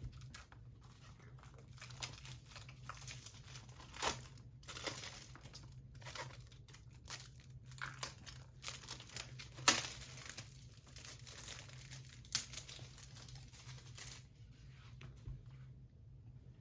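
Plastic shrink-wrap being torn and crumpled off a Blu-ray case: irregular crinkling and tearing, with a few sharp louder rips, dying away about two seconds before the end.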